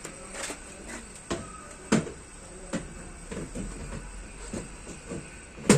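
Motorcycle top box being handled onto its quick-release mounting plate: a series of scattered knocks and clicks, ending in one loud clunk.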